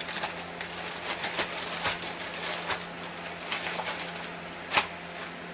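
Handling noises while plating food into flour tortillas: irregular rustling and light clicks, with one sharp click a little before the end.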